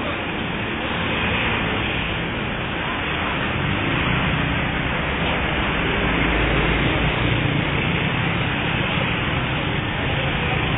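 Steady roadside traffic noise: a dense hiss over a low engine rumble that swells around the middle.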